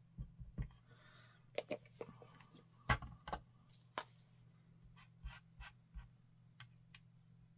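Scattered light clicks and taps of hands handling craft tools on a cutting mat: a small glue bottle set down and fine tweezers picked up, the sharpest click about three seconds in. A steady low hum runs underneath.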